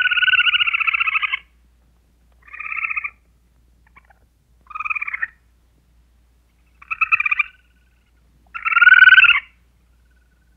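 Squirrel chattering: five buzzy trilled calls, each up to about a second and a half long, with pauses of a second or two between them. The last call is the loudest.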